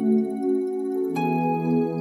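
Background music of slow, sustained chords, with a new chord coming in about a second in.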